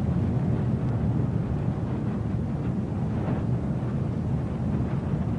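A steady low rumbling roar with no clear pitch, like a heavy rushing noise.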